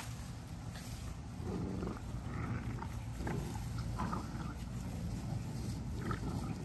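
XL pit bull puppies growling in several short rough bursts.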